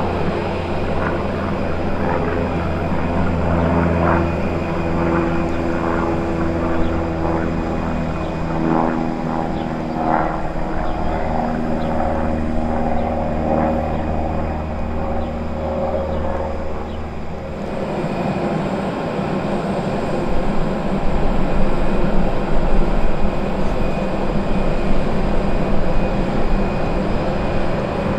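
Cessna 172 Skyhawk's piston engine and propeller droning steadily as the plane flies past. About 17 seconds in the drone stops abruptly and gives way to a louder, steady rushing noise with no engine tone.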